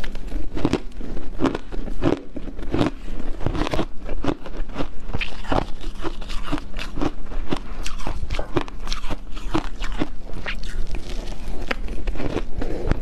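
Shaved ice crunched between the teeth, hard crunching in a rapid, irregular run of crisp cracks.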